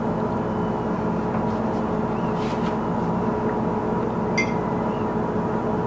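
Steady background hum made of several held tones, with a couple of faint light clicks of a fork against a plate, one about halfway through.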